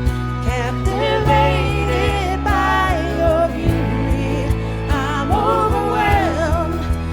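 A worship band plays a contemporary Christian song: a sung melody over sustained bass notes and a steady drum beat.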